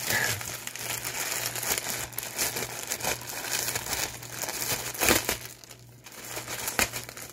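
Plastic mailing bag being crinkled and pulled open by hand: irregular crackling and rustling of thin plastic, loudest about five seconds in, over a steady low hum.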